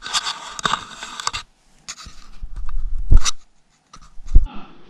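Handling noise from a handheld camera being moved: scratchy rustling and scraping with small clicks for about a second, then low rumbling with two dull bumps, one just after three seconds in and one about four and a half seconds in.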